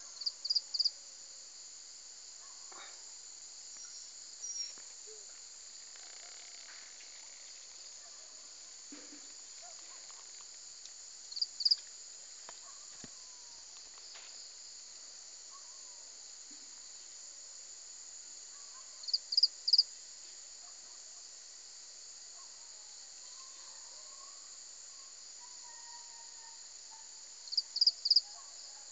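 Steady high-pitched chorus of crickets or similar insects, with a loud call of three or four quick chirps repeated about every eight seconds.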